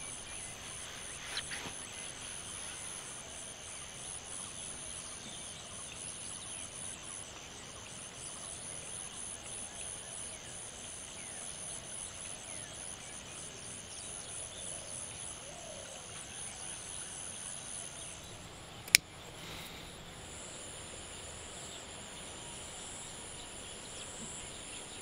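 Steady chirring of insects, with high pulsing trills that carry on throughout and shift in pitch partway through. A single sharp click cuts across them about nineteen seconds in.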